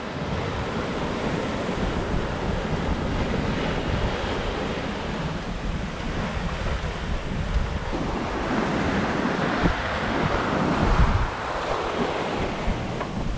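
Wind buffeting the microphone over the steady rush of the sea around a sailing yacht running downwind in a strong 18 to 23 knot wind, with a louder surge of rushing water a little past halfway.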